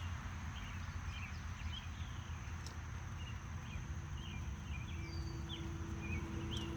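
Garden ambience: short, scattered bird chirps over a steady low rumble and a thin, steady high-pitched whine.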